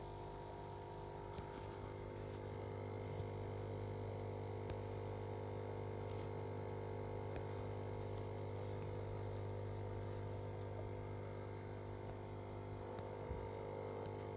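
Steady low hum of running aquarium pumps and filters, with a few faint clicks.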